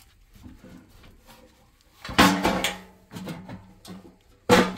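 Handling noise of a furnace's sheet-metal blower housing and motor wiring being moved by gloved hands: light rustling and scraping, with two loud clatters, about two seconds in and near the end.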